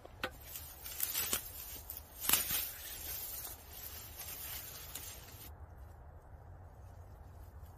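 Dry twigs and dead grass being handled: rustling and crackling with a few sharper clatters in the first two and a half seconds. It goes much quieter from about five and a half seconds in.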